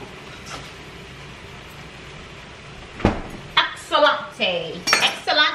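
Steady low background noise, then a single sharp knock about three seconds in, followed by a woman's voice for the last two seconds.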